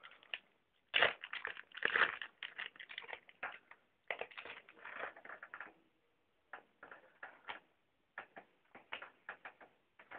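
Baseball cards being handled and flipped through: quick papery clicks and rustles, dense at first and sparser with short pauses in the second half.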